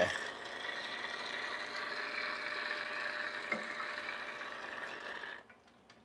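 Quick Mill Anita Evo's E61 group head flushing: a click as the lever goes up, then about five seconds of water spraying from the group with the pump running, rinsing the portafilter, cut off suddenly as the lever drops.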